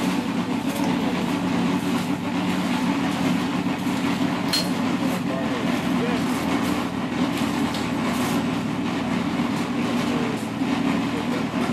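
Street construction work: a steady low engine drone under scattered clinks and scrapes of shovels and steel wheelbarrows, with one sharp metallic clink about four and a half seconds in, and faint voices.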